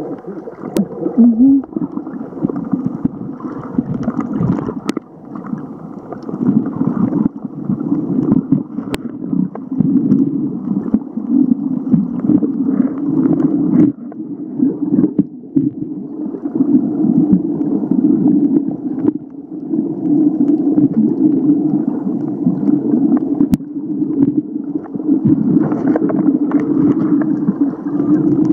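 Muffled underwater rushing and gurgling of water moving around a submerged camera, rising and falling throughout, with a few sharp clicks.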